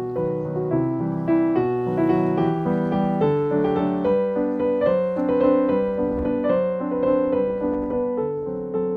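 Background piano music: a continuous melody of single notes over held chords at a steady level.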